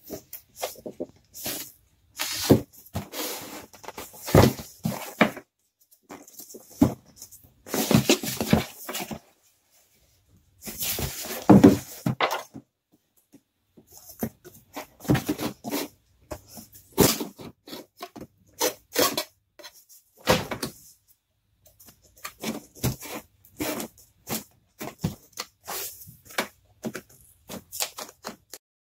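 A cardboard mailing box being handled and slid on a wooden table and its packing tape slit open with a blade: irregular scrapes and rustles with sharp knocks.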